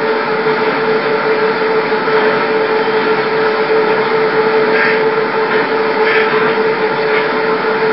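Steady hiss with a constant mid-pitched hum underneath, and a couple of faint brief rustles about five and six seconds in.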